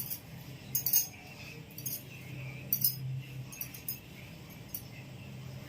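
Knife slicing raw chicken breast into strips, giving several light, sharp clicks at irregular intervals. A steady low hum runs underneath.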